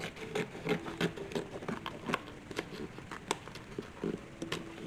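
Paper crackling and irregular light taps as hands press glued wallpaper lining into the inside of a small trunk.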